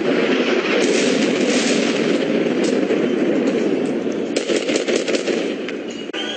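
Gunfire: quick sharp shots over a continuous loud rushing noise, with a dense run of shots about four and a half seconds in.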